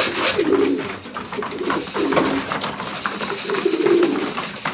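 Loft pigeons cooing, three low drawn-out coos spaced over a few seconds.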